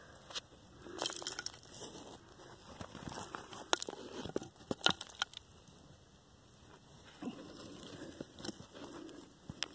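Irregular crunching and scraping with scattered sharp clicks, from a person moving about on loose dry dirt and debris. The loudest are two sharp clicks about four and five seconds in.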